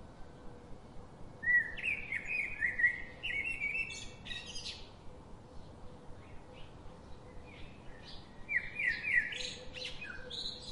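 Birds singing: two runs of quick chirping phrases, one beginning about a second and a half in and another near the end, over a faint steady hiss.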